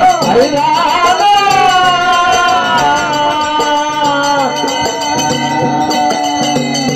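Kannada dollina pada folk song: a man's voice sings long, wavering held notes, over small hand cymbals keeping a quick steady beat and a drum.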